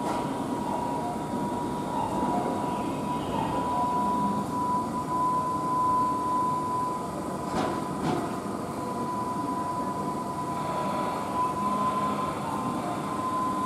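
Keihan 9000 series electric train standing at the platform, with a steady high tone over a low hum. Two short knocks come about eight seconds in.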